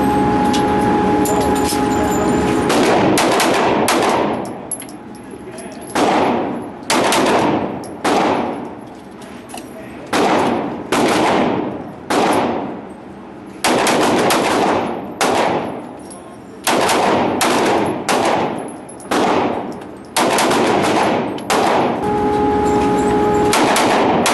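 Handgun or rifle shots fired at an indoor range, about twenty of them in uneven strings roughly a half-second to a second apart, each followed by a long ringing echo. A steady loud hum with a droning tone fills the first few seconds and returns near the end.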